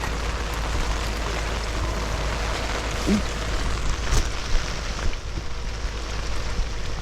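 Heavy rain pouring down, a steady hiss of water with a few faint drip-like ticks, over a low steady rumble.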